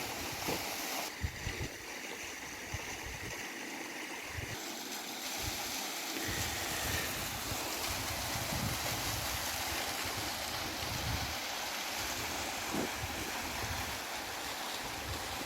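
Steady rush of falling and flowing water from a mountain waterfall and its river, with wind buffeting the microphone in low, uneven gusts.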